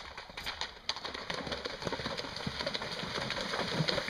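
A cob horse cantering up a shallow stream, its hooves splashing through the water, growing louder as it comes closer.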